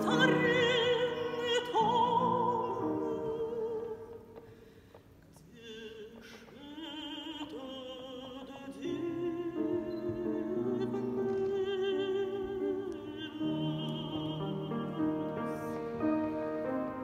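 A woman's classically trained soprano voice singing a Russian romance with wide vibrato and long held notes. The singing dies down about four seconds in and comes back a couple of seconds later.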